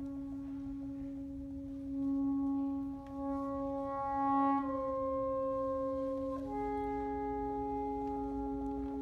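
Saxophone quartet of soprano, alto, tenor and baritone saxophones holding slow, sustained chords. A low note stays steady while the upper voices move to new notes about halfway through, and again a couple of seconds later when another held note enters.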